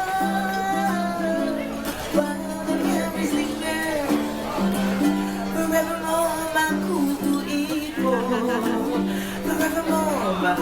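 Music of plucked strings with singing, steady throughout.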